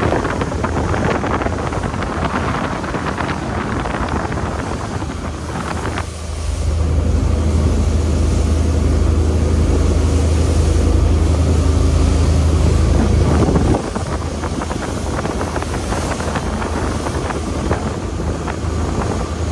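2008 Cruisers Yachts 330 Express cruiser's engines running steadily at cruising speed, a low drone under the rush of wind and water past the hull, with wind buffeting the microphone. The engine drone grows louder about six seconds in and drops back a little near fourteen seconds.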